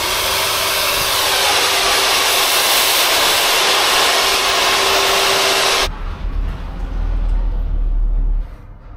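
Handheld hair dryer blowing at full speed: a steady rushing whoosh with a steady hum, which cuts off about six seconds in. A low rumble follows for about two more seconds.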